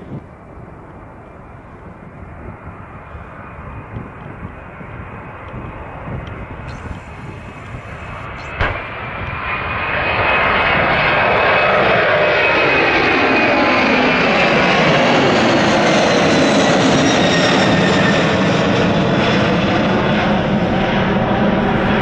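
Airbus A300 freighter's twin jet engines at takeoff power: a distant low rumble, then from about ten seconds in loud jet noise as the plane climbs past, its whine falling slowly in pitch as it goes away. A single short knock sounds about eight and a half seconds in.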